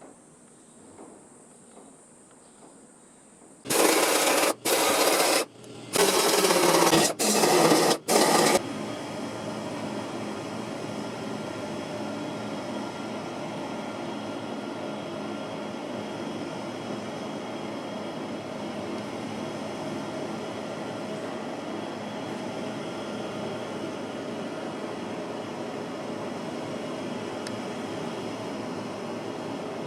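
Power tool work on a car's steel floor panel: several loud bursts a second or two long with short breaks, then a steady grinding or sanding noise that keeps running.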